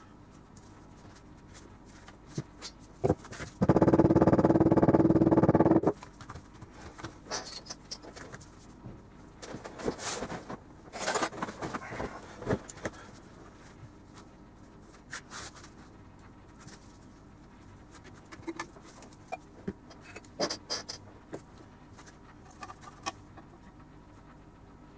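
Handling sounds of leather pieces and a steel strip being moved and set down on a work mat: scattered light taps, clicks and rustles. About four seconds in, a loud steady buzz with a low hum lasts about two seconds.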